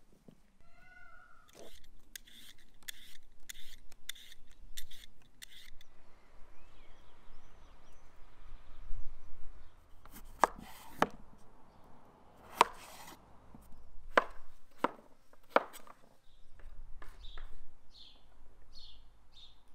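Meat cleaver chopping peeled potatoes on a wooden cutting board: a run of quick knocks, then several heavier chops about a second apart. A short pitched call comes briefly near the start.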